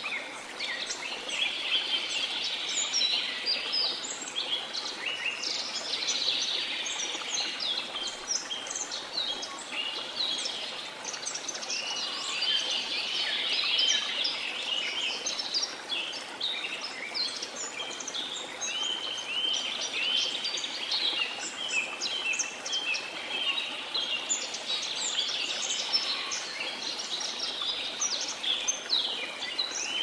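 A dense chorus of many songbirds chirping and singing without a break, over the soft, steady rush of a waterfall.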